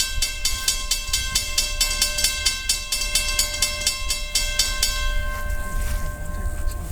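Railroad grade-crossing bell ringing rapidly and evenly, stopping about five seconds in, over the low rumble of an approaching freight train.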